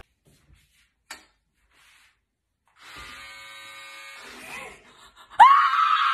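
Electric hair clippers buzzing steadily for about two seconds, starting about three seconds in, then a woman's loud, long scream that breaks out suddenly near the end.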